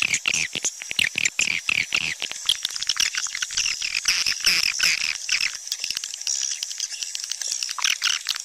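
Swiftlet calling sound: a dense, continuous twittering of high-pitched swiftlet chirps and clicks, a lure recording played to draw swiftlets into a bird house.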